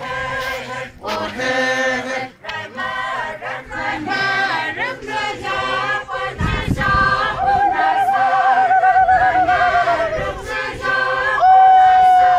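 A group of dancers singing a traditional chant together, unaccompanied. A long wavering held note runs through the middle. About eleven and a half seconds in, a louder, steadier held note comes in and sinks slowly in pitch.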